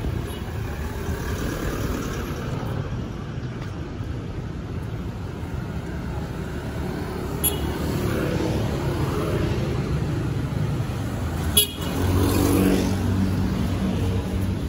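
Street traffic passing steadily. A sharp click comes about twelve seconds in, followed by a vehicle horn sounding for a couple of seconds.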